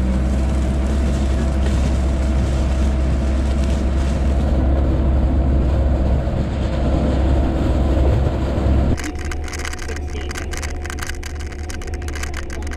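Sherp ATV's diesel engine running steadily under way across lake ice, a loud low rumble. About nine seconds in, the sound cuts to inside the cabin: a quieter engine drone with rapid clicking and rattling.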